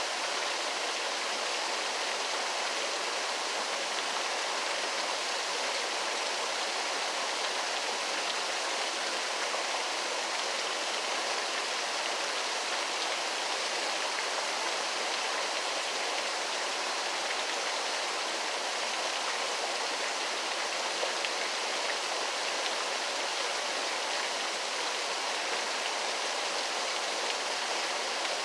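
Waterfall: a steady, even rush of falling water, hissy and light in the low end.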